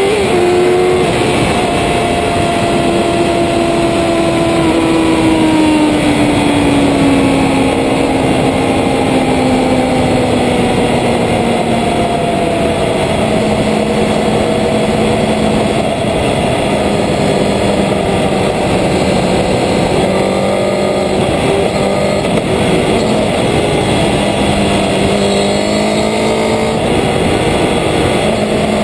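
Road-racing motorcycle's engine under way on track, heard from a camera mounted low on the bike, with wind rush. The engine note falls gradually over the first dozen seconds, holds steady, then rises a little near the end.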